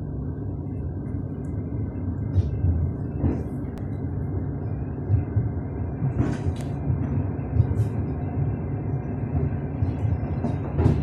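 Passenger train running, heard from inside the carriage: a steady low rumble of wheels on the track, with a few sharp knocks from the wheels at irregular intervals.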